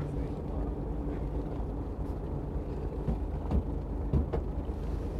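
Fishing boat's engine running steadily at a low idle, with a couple of dull knocks about three and a half and four seconds in.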